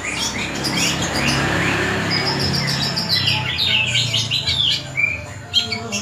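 Caged long-tailed shrike (cendet) singing a fast, varied run of short chirps and gliding notes, thickest and quickest in the second half.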